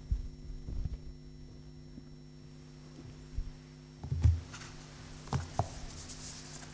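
Scattered low thumps and knocks, the loudest a little past the middle, with a brief rustle near the end, over a steady electrical hum from the sound system.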